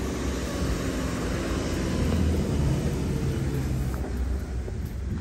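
Steady low engine rumble of passing motor traffic, fading about four and a half seconds in.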